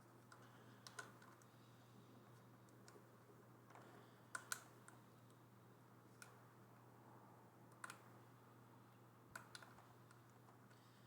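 A few faint, sharp clicks and taps, scattered and irregular, with a close pair about four seconds in, over a steady low hum.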